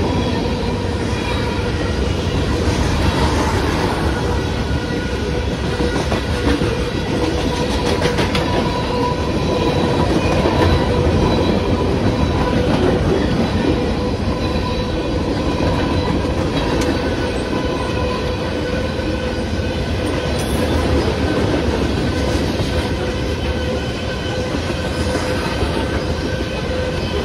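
Freight train cars rolling steadily through a grade crossing: a continuous rumble and clatter of steel wheels on the rails, with a steady whine above it.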